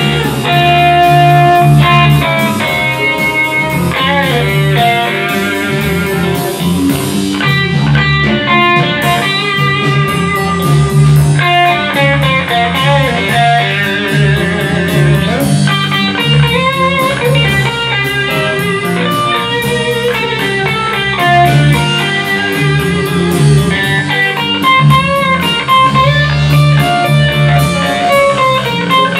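Live blues band playing an instrumental passage: electric guitar lines with bent notes over bass and drums, with a steady cymbal tick keeping time.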